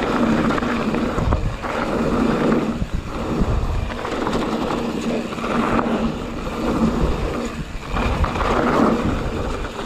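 A YT Jeffsy full-suspension mountain bike rolling fast downhill over dry, hard dirt and loose gravel: a continuous rumble of tyres and rattling bike that swells and dips every second or two.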